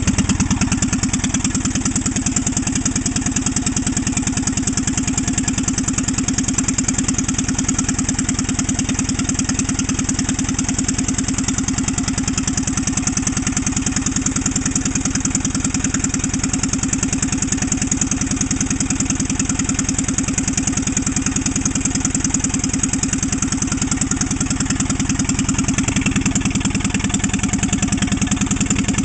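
The Wisconsin TF air-cooled engine of a 1954 Lincoln Weldanpower welder runs at a steady speed in freezing weather, soon after a cold start. Its rapid, even exhaust beat carries throughout.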